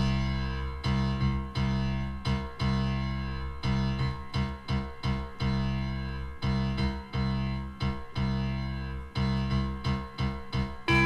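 Instrumental easy-listening orchestra music from a 1978 LP starts suddenly after a silent gap between tracks. A keyboard plays a run of regularly struck notes over steady bass, and another instrument enters with held notes near the end.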